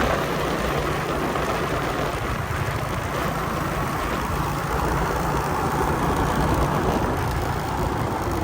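Motorcycle riding along the road: steady engine running under loud wind rush over the microphone.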